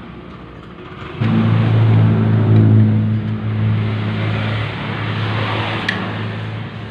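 An engine starts running about a second in, loudest over the next two seconds, then keeps running steadily at a lower level.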